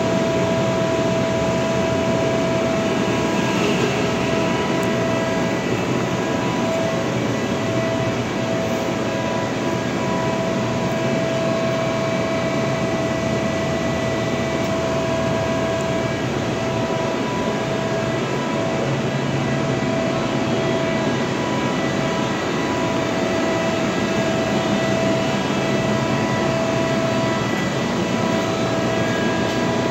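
Giddings & Lewis G50-T CNC horizontal boring mill running: a steady mechanical hum with several constant whining tones, the strongest a mid-pitched whine, and no change in speed.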